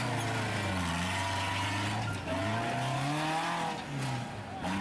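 Engine of a rock-crawling pickup truck revving up and down in repeated surges under load as it climbs a steep rock ledge, with a brief sharp knock near the end.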